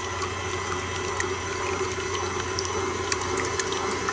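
Electric stand mixer running, its flat beater churning wet donut batter ingredients (sour cream, oil, milk and egg) in a stainless steel bowl. A steady motor hum sits under the wet churning, with scattered small ticks.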